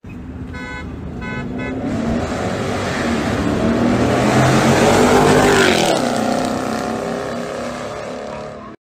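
A horn gives three short toots. Then two cars accelerate hard down the road toward the listener and pass at speed, their engine pitch dropping sharply as they go by about six seconds in, and the sound fades as they pull away.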